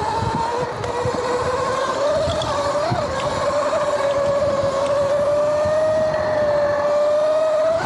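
Sur-Ron electric dirt bike riding, its motor and primary chain drive giving a steady whine that climbs slowly in pitch as the bike gathers speed, over a low uneven rumble. The drive sounds louder and noisier because a chain conversion kit has replaced the stock primary belt.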